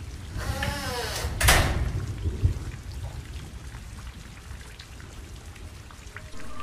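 Sound-effect door creaking shut and closing with a bang, then a smaller knock about a second later, over a steady rain sound.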